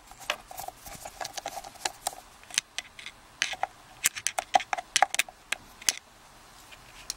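Irregular small clicks and taps of a tool working on a padlock's body as it is being taken apart, several a second at times, with a faint ring on some.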